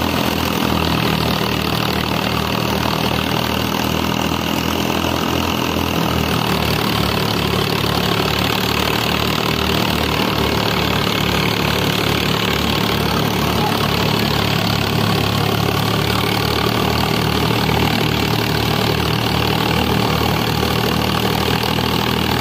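Sonalika tractor's diesel engine running steadily under load, driving a wheat thresher through its PTO, with the thresher's drum running alongside. The engine's beat shifts slightly about six seconds in.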